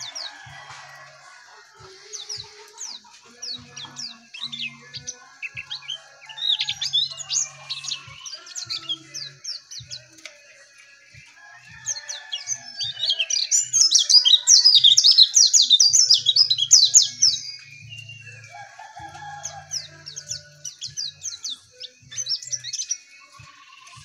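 Caged white-eye (pleci) singing in quick, high twittering phrases, with a loud, dense burst of song lasting about five seconds around the middle.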